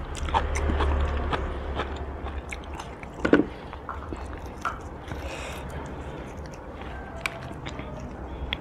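Close-miked eating sounds: chewing and mouth clicks while gloved fingers pull meat off boiled pork bones, with one louder click about three seconds in.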